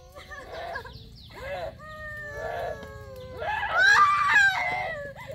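A rooster crowing: drawn-out calls, loudest about four seconds in.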